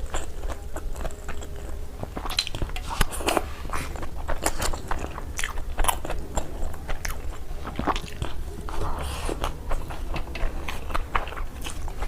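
A person biting and chewing crunchy food close to the microphone: many irregular crunches and crackles over a steady low hum.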